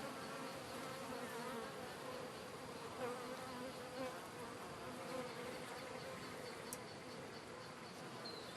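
Honey bees from an open hive buzzing: a steady, wavering hum of many bees flying and fanning.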